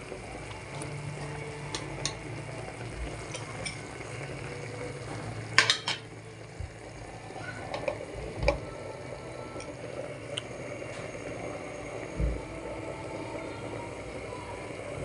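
A pot of chicken adobo simmering, bubbling steadily, with scattered small clicks. About halfway through, a glass pot lid is set on with a brief clatter of sharp clinks, then a couple of lighter knocks.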